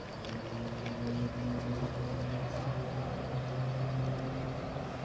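An engine droning steadily, a low hum that holds one pitch throughout.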